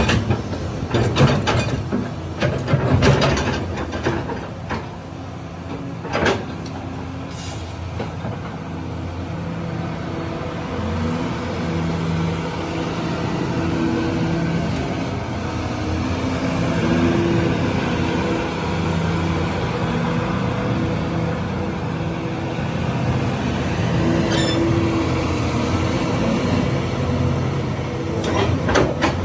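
Kobelco SK350-8 crawler excavator running, its diesel engine and hydraulics under changing load as the boom, arm and bucket are worked. There are several sharp knocks and clanks in the first six seconds or so, then a steadier hum whose pitch and loudness shift with the movements.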